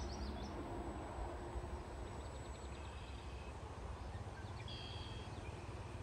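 Wind rumbling on the microphone, with a few short bird chirps and trills about two seconds in and again about five seconds in.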